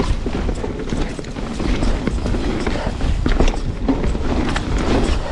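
Canyon Spectral 29 full-suspension mountain bike riding down a dirt trail: a steady low rumble of tyres and wind on the microphone, with many quick clicks and knocks as the bike rattles over the ground.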